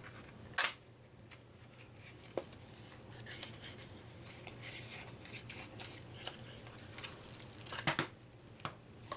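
A glued-shut cardboard card-game box being opened by hand: cardboard scraping and rustling, with a sharp snap about half a second in and another near the end as the glued flap gives.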